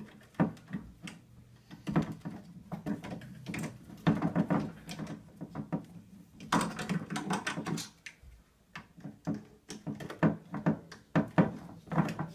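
Repeated clicks and knocks of metal scooter parts being handled and worked with an Allen wrench while the SCS clamp, headset and forks are tightened and lined up.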